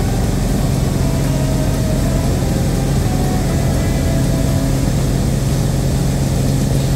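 Light airplane's piston engine and propeller droning steadily in flight, a constant low hum with no change in pitch.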